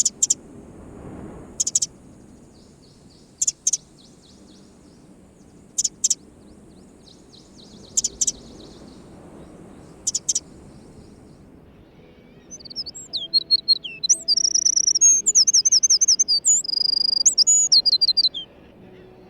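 Eurasian wren calling and singing: short, sharp high notes about every two seconds, then, about twelve seconds in, a loud, rapid song of trills and whistles lasting about six seconds.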